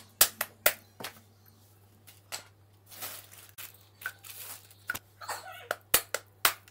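Sharp, irregular knocks of a whole coconut being struck by hand to crack its shell, a dozen or so hits with rustling handling noise between them.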